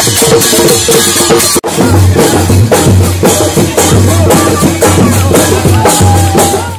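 Loud folk music with fast, steady drumming and a heavy low beat. The sound drops out for an instant about one and a half seconds in.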